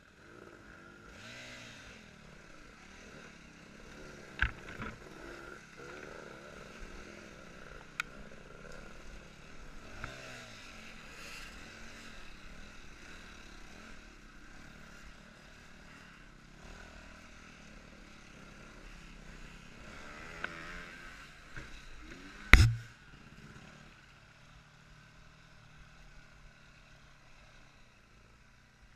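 Yamaha WR250F four-stroke single-cylinder dirt bike engine running, its revs rising and falling as it rides a rough forest trail. Sharp knocks and clatter come as the bike hits bumps, with one loud knock about three-quarters of the way through.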